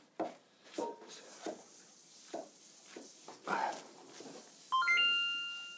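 Raw pork loin handled and cut on a wooden cutting board: soft, irregular thumps and squishes of the meat and knife. About five seconds in, a sudden bright ringing of several pitches, the loudest sound, rings on and fades.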